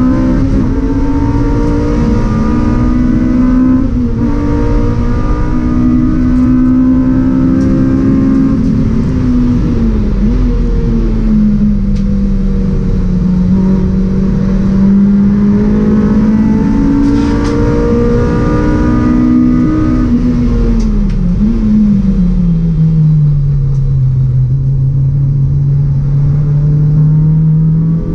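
Cabin sound of a 2004 Honda Civic Type R EP3 race car's 2.0-litre four-cylinder engine at racing speed, held at high revs. The engine note drops about ten seconds in and climbs back, then falls much lower from about twenty-one seconds before rising again near the end.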